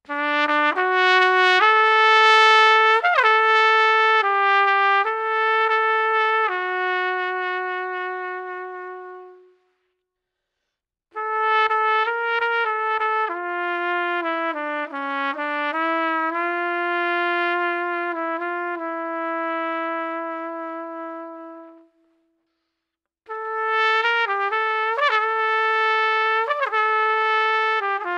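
Unaccompanied trumpet playing three slow phrases of long held notes, each phrase fading out before a silence of a second or two.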